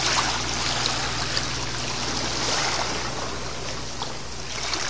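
Small waves of a calm sea lapping and trickling over a rocky, pebbly shoreline, a steady watery wash with a few faint ticks.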